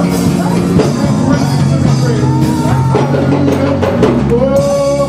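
Live gospel praise band playing with drums, and voices singing over it.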